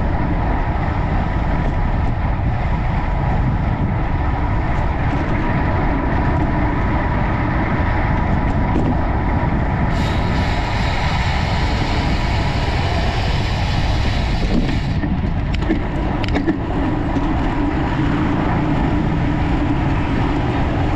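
Steady wind rush over the microphone of a camera riding on a road bicycle at race speed. A hissier, higher noise joins in for about five seconds in the middle.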